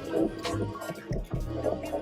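Hip hop music with a steady beat and deep bass.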